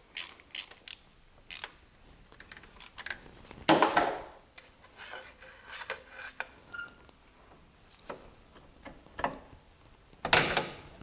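Scattered light metallic clicks and taps of a hand tool working on a coolant hose clamp, with two louder scraping sounds, one about four seconds in and one near the end.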